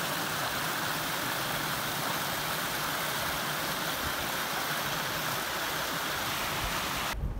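Small rocky creek running over stones with a steady rush of water, cutting off abruptly near the end.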